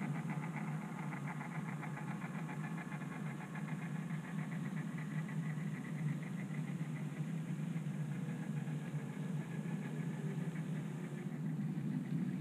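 OO gauge model Class 20 diesel and its mixed goods train running past close by: a steady diesel-engine drone with a fast ticking of model wagon wheels on the track, which fades after about eight seconds.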